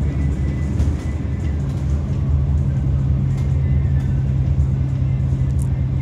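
Steady low drone of a bus engine and road noise, heard from inside the moving bus.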